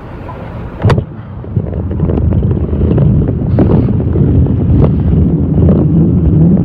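Wind buffeting a phone's microphone on a moving bicycle, a loud low rumble that builds after about a second and a half as the bike gets going. A single sharp knock about a second in.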